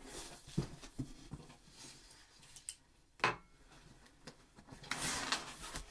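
Handling of an opened cardboard shipping box: a few light taps and clicks, a sharp knock a little after three seconds in, then paper and cardboard rustling near the end as contents are pulled out.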